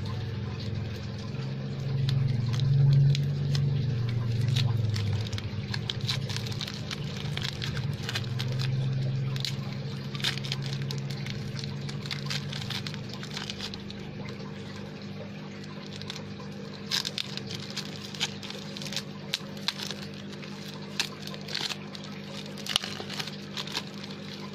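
Paper and packing tape crinkling and crackling in short, irregular rustles as the wrapping is peeled and torn by hand, over a steady low hum. A low rumble swells twice, in the first few seconds and again from about eight seconds in.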